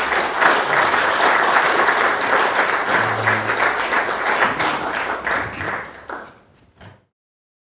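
Audience applauding after a talk, steady and loud, then thinning out near the end and cutting off abruptly.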